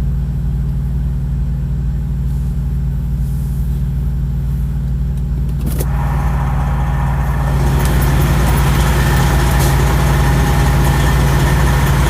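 Semi-truck diesel engine idling with a steady low hum. A click comes about six seconds in, after which a louder, noisier engine sound rises and holds.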